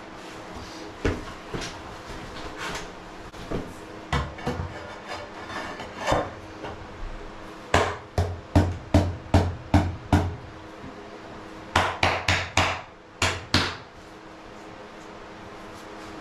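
Knocks on a large floor tile as it is tapped down and bedded into thinset mortar: scattered knocks and scrapes at first, then two quick runs of sharp knocks, about three a second, the first of about seven and the second of about five.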